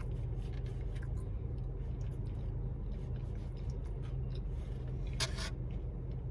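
Steady low hum of a car idling, heard from inside the cabin, with faint soft clicks and one short, louder rustling noise about five seconds in.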